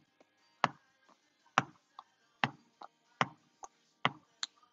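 A ball bounced over and over on a hardwood floor, with a sharp thud a little more than once a second and lighter taps in between.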